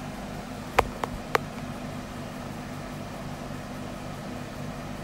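A steady low mechanical hum, with three short sharp clicks in quick succession about a second in.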